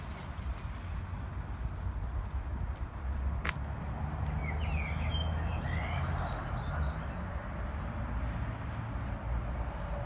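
Steady low outdoor rumble, with a bird chirping several short notes in the middle and a single sharp click about three and a half seconds in.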